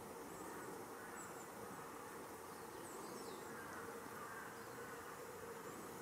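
Faint, steady buzzing hum with a few faint high chirps.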